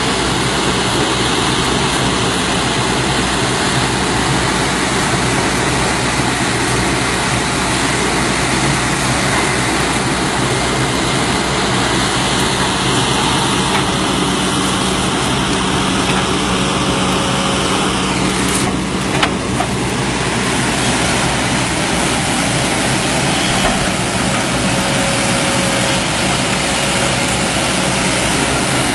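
Excavator's diesel engine running steadily under load.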